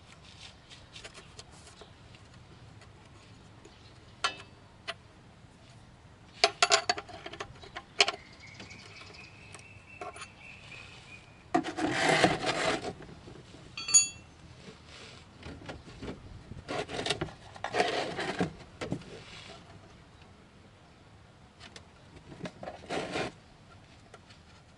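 Socket wrench loosening a car's oil pan drain plug: several short bursts of rattling clicks and metal clinks, with single clicks from handling the tool between them.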